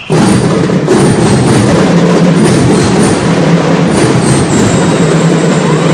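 Drum and lyre corps starting to play, drums beating densely. It comes in suddenly and very loud, near the top of the recording's range.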